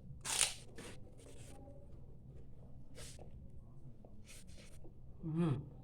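Close-miked eating sounds: scattered short crunching and chewing noises, then a brief voiced hum near the end.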